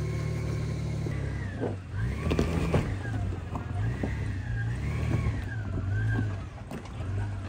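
Jeep Gladiator's engine revving up and down in waves, with a whine rising and falling along with it, and a cluster of knocks about two to three seconds in.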